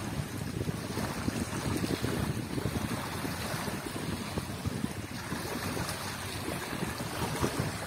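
Small wind-driven river waves lapping and washing onto a muddy bank, with wind buffeting the microphone.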